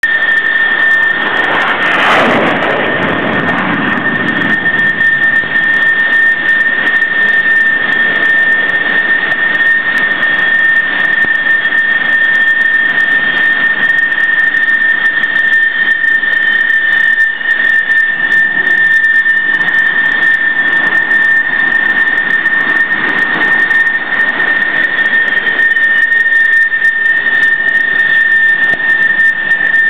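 F/A-18 Hornet jet engines running with a steady high-pitched whine over a loud rush of noise. About two seconds in, a surge of jet noise falls away in pitch over a couple of seconds, as a jet is launched off the steam catapult.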